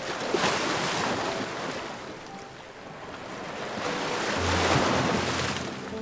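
Ocean surf washing up on a sandy beach, in two swells: one breaking about half a second in and a second, louder one building to a peak near the end.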